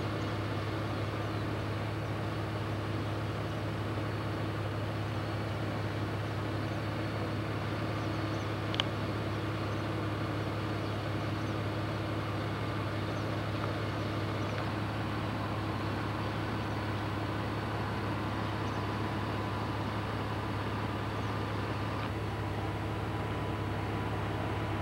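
Steady low hum with an even hiss that does not change, and a single short click about nine seconds in.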